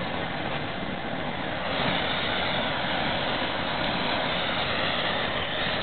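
Hand-held gas burner running with a steady hiss, singeing the bristles off a slaughtered pig; it gets louder a little under two seconds in.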